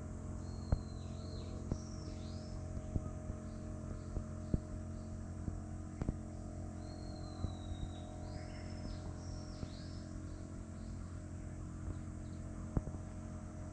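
A songbird singing twice, each phrase a drawn-out whistle followed by quick down-sweeping notes, over a steady low hum and scattered faint clicks.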